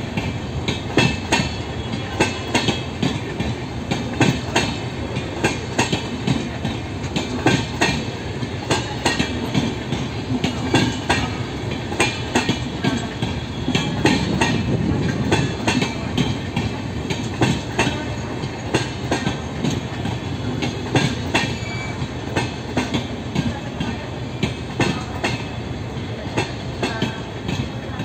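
Passenger train coaches rolling past close by, with a steady rumble and a clatter of sharp wheel clicks, several a second, as the wheels run over the rail joints.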